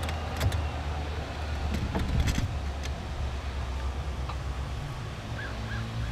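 Steady low rumble of a diesel freight locomotive, with a few sharp clacks about half a second in and again around two seconds in.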